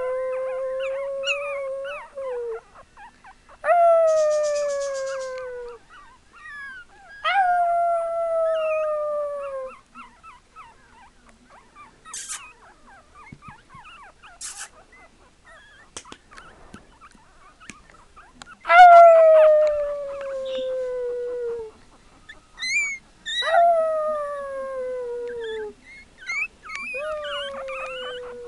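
Chihuahua puppy howling: six long howls, each starting high and sliding steadily down in pitch over two to three seconds, with a quieter gap of several seconds in the middle.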